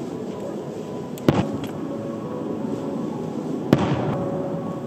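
Aerial fireworks shells bursting: two sharp booms, one about a second in and one near the end, each trailing off in a short rumble.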